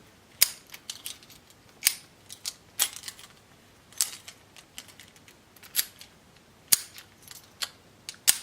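Abus 83/45 padlock being locked and opened with its newly rekeyed keys: a series of sharp metallic clicks, about seven loud ones at irregular intervals with fainter ticks between, as the shackle snaps shut and the key goes in and turns the cylinder.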